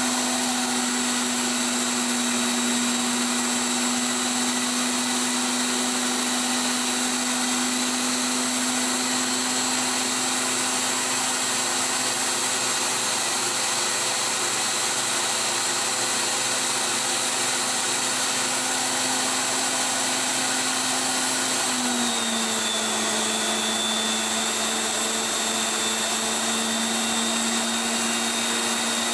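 Tool post grinder on a lathe grinding the steel taper of an R8 arbor: a steady high-pitched motor whine with a gritty grinding hiss, on a roughing cut with a freshly dressed wheel. About 22 seconds in the whine steps down slightly in pitch and stays there.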